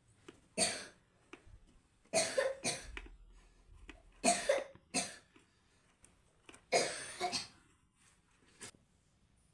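A man coughing repeatedly: several short fits of one or two harsh coughs, roughly every two seconds.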